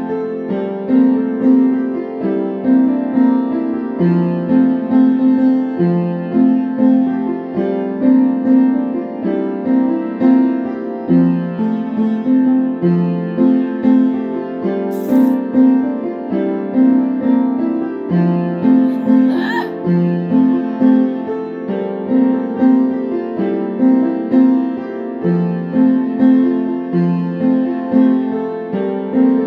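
Piano music with a steady, repeating pattern of notes.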